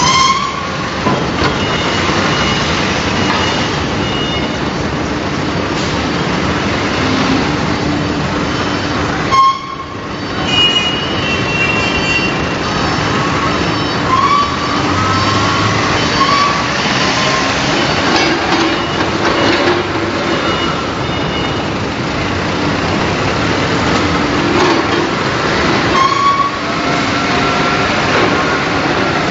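Loud, steady industrial roar from aluminium-melting plant machinery, with a low hum and occasional high squealing and gliding metallic tones. The sound cuts off abruptly twice and resumes at once.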